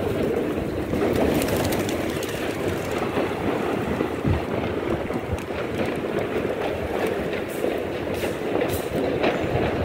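Wind buffeting the microphone, a steady noisy rumble with irregular low thumps.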